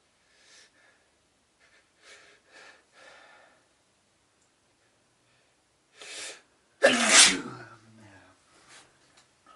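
A person's faint breaths catching several times, then a sharp inhale and one loud sneeze about seven seconds in, followed by a few faint breaths.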